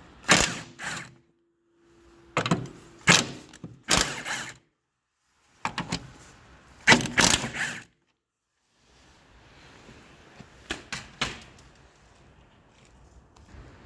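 Several clusters of short, sharp clanks and knocks, with the sound cutting to dead silence twice between them.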